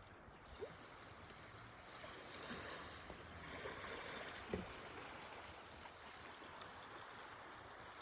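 Faint, gentle wash of small sea waves lapping over a stony pebble shore, swelling a little a few seconds in, with a short click about halfway through.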